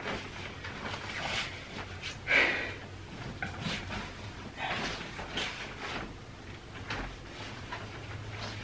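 Cotton bedsheets and bedding rustling and swishing as they are handled and tucked in, in irregular bursts with a louder one about two seconds in, over a low steady hum.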